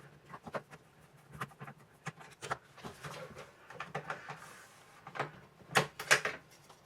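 Scattered light clicks and taps of small tools and air-rifle parts being handled during disassembly, with a couple of sharper clicks about six seconds in.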